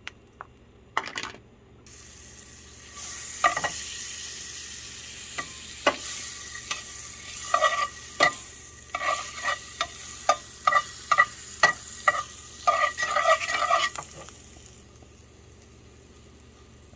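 Butter sizzling in a frying pan while a spatula scrapes and taps across the pan surface in a quick series of strokes. The sizzle starts a few seconds in and fades near the end.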